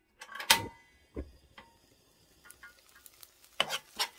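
A few sharp clicks and light taps, then near the end a spatula starts clattering and scraping in a nonstick frying pan as a thick chili seasoning sauce is stirred.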